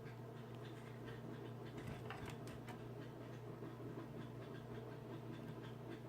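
Faint scratching and light clicks of small lock pins and parts being handled, with a few sharper ticks about two seconds in, over a steady low hum.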